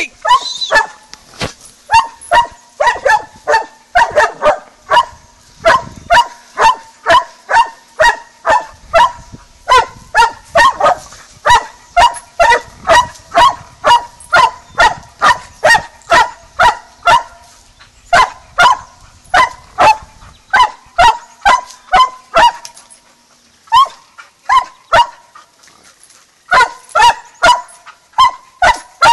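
Walker coonhound barking at a raccoon it has cornered against a pen, a steady run of loud barks about two a second, with a short break near the end.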